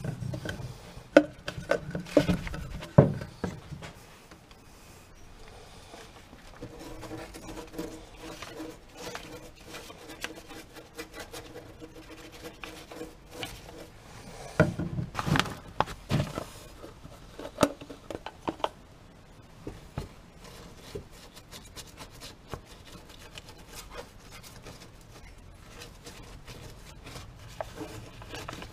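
Paintbrush rubbing and scrubbing rust-treatment paint onto bare, pitted steel inside a car's rear wheel well, with a few sharp knocks near the start and a louder scuffing burst about halfway through.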